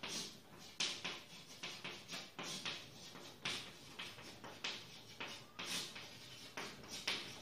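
Chalk scratching on a blackboard as words are written: an irregular run of short scratchy strokes, two or three a second.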